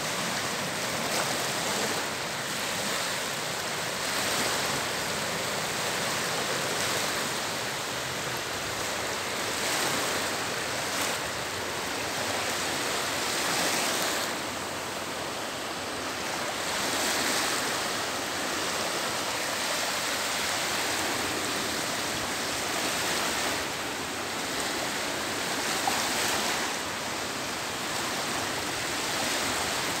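Small waves of the Baltic Sea washing over shallow water and a sandy shore: a steady rush of surf that swells and eases every few seconds.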